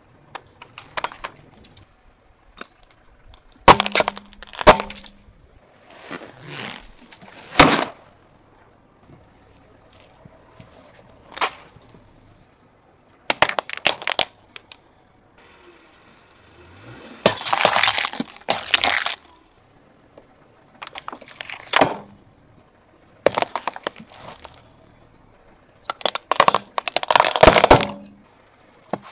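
A car tyre crushing plastic toys one after another: a string of sharp cracks, snaps and crunches separated by short pauses. Near the end there is a loud cluster of cracking as plastic yo-yos shatter into pieces.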